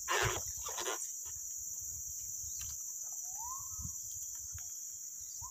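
Steady, high-pitched chorus of insects. A short rustle comes at the start, and a brief swooping call comes about three seconds in.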